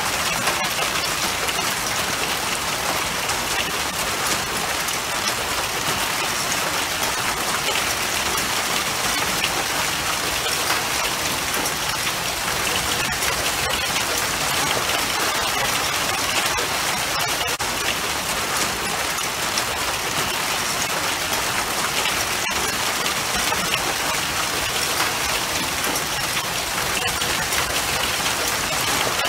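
Hailstorm: hail and rain pelting a concrete patio and its furniture, a steady dense hiss of countless small impacts with no let-up.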